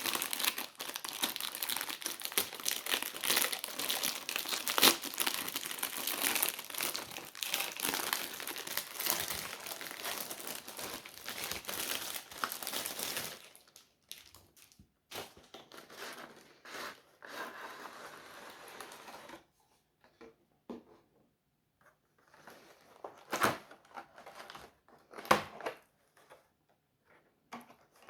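Packaging crinkling and rustling as it is handled, dense and continuous for about the first thirteen seconds, then sparser rustles with a few sharp clicks.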